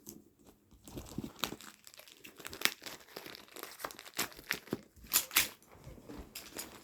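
Scissors cutting open packaging: irregular snips and clicks mixed with crinkling and tearing of the wrapping.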